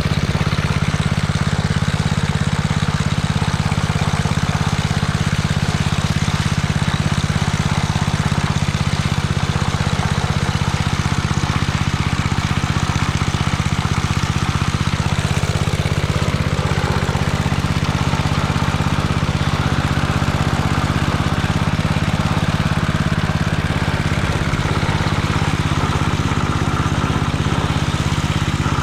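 Locke Triplex reel lawn mower's engine running steadily, with no change in speed throughout.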